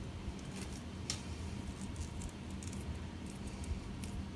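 HDMI cable and its packaging being handled: faint rustling with a few light clicks, over a steady low hum.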